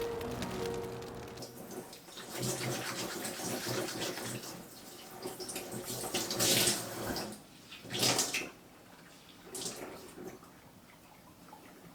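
Water running from a kitchen tap into a sink, uneven, with louder gushes two-thirds of the way through. Background music fades out in the first second or two.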